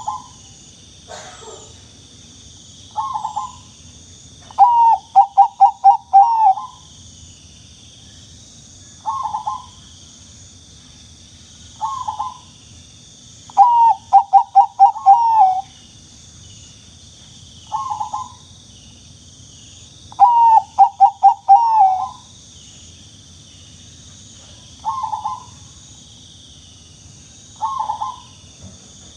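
Zebra dove (perkutut) cooing: short single coos every two to three seconds, with three longer runs of five or six quick coos in a row.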